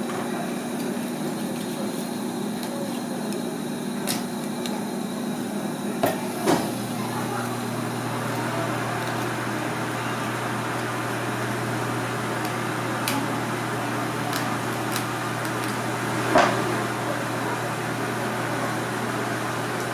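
A kitchen knife knocking and cutting through a slipper lobster's shell on a cutting board: a handful of sharp knocks, the loudest about sixteen seconds in, over a steady background hum.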